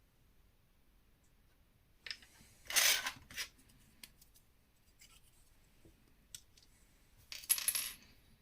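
Plastic LEGO pieces clattering and rattling as they are handled, in two short bursts: one about two seconds in and another near the end, with a few light clicks between.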